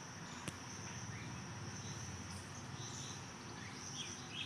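Steady high-pitched insect trill, with a few short faint chirps over it and a single sharp click about half a second in.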